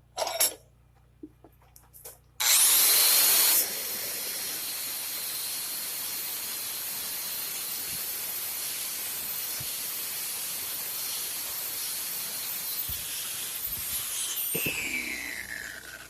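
A few handling knocks, then a high-speed electric power tool switched on about two and a half seconds in. It spins up with a rising whine, is loudest for the first second, then runs steadily, and is switched off near the end, winding down with a falling whine.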